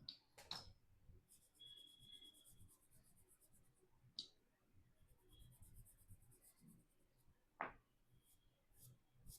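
Faint scratching of soft pastel stroked on paper, in runs of quick repeated strokes, with a few light clicks.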